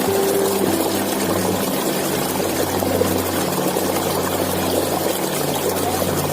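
Waterfall rushing in a steady, unbroken wash of falling water, with low held tones underneath.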